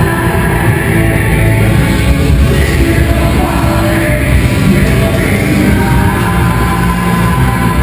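Rock music with a singing voice, steady and loud.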